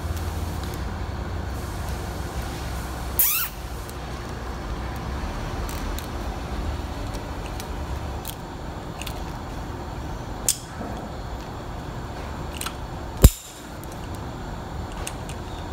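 Plastic zip ties being fastened and trimmed: a quick zip as a tie is pulled tight about three seconds in, a few light clicks, then one sharp, loud snip near the end as cutters trim off a tie's tail. A steady low hum runs underneath.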